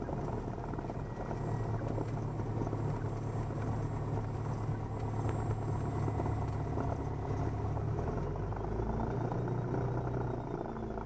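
1977 Cessna 172N's four-cylinder Lycoming piston engine and propeller running at low taxi power, a steady drone while the plane turns on the grass. The drone's note shifts about eight seconds in.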